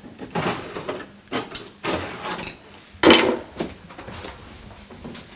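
Household handling noises: a string of knocks, scrapes and rubs, the loudest a single knock about three seconds in.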